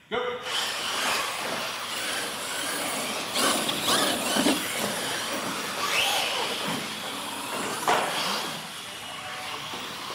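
Radio-controlled monster trucks racing across a concrete floor: motors whining and rising and falling in pitch a few times over a steady hiss of running gear and tyres.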